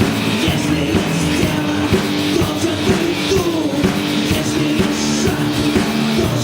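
Live rock band playing, with a drum kit keeping a steady beat under electric guitar and bass.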